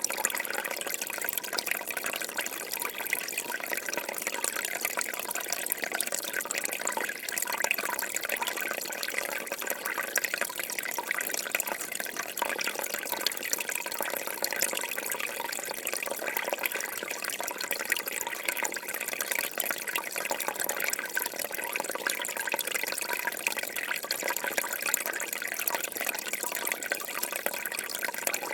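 Water falling from a tap and splashing, a steady, unbroken patter of closely packed drops with no pauses.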